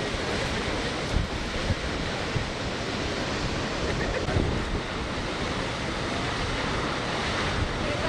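Steady rush of a large waterfall, the Lower Düden Falls pouring some 40 metres off the cliffs into the sea, with wind buffeting the microphone in a few small gusts.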